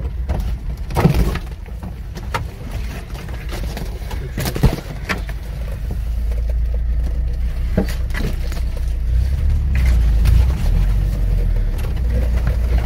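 Off-road vehicle driving slowly over rough ground, heard from inside the cab: a steady low engine and drivetrain rumble that swells around two-thirds of the way through, with a few sharp knocks and rattles from bumps.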